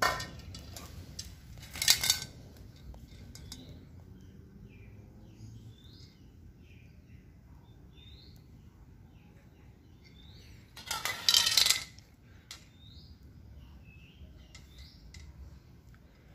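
Diton Premium aerosol spray paint can making two short noisy bursts, one about two seconds in and a longer one around eleven seconds in, while a clear coat goes onto the kite head. Faint bird chirps sound in between.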